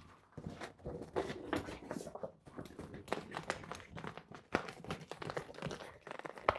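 Rustling and crinkling of the bed's padded fabric panels being handled and adjusted, with several sharp knocks and taps, one louder about four and a half seconds in.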